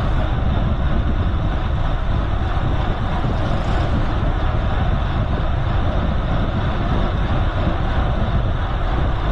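Wind rushing over the microphone of a moving bicycle's camera, mixed with the hum of tyres rolling on the road: a deep, steady rush with no break.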